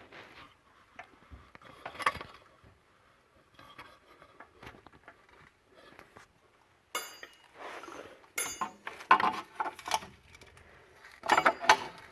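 Steel clanking and clinking from C-clamps and a wheel hub being cranked and handled. The knocks are scattered and light at first, then start sharply about seven seconds in and grow louder and busier near the end as the hub works free.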